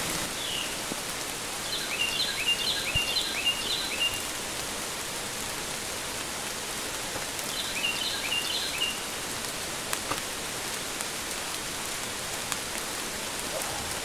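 Steady rain falling in woodland. A bird sings a short phrase of quick, repeated falling notes twice, about two seconds in and again around eight seconds.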